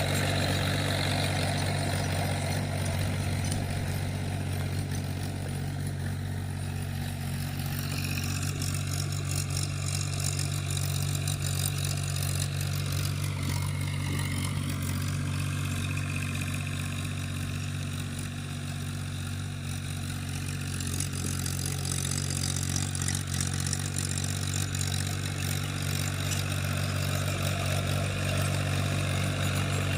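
Tractor engine running steadily while ploughing a field, a constant low hum with small shifts in tone around the middle.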